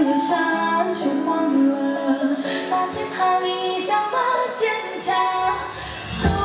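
Live pop band music through a concert sound system, with cymbal strokes on top. Bass and drums come in strongly about five seconds in.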